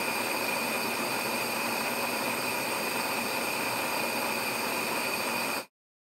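Steady hiss of a gas pilot-light flame, a sound effect, with a faint whistle in it; it cuts off suddenly near the end as the flame goes out.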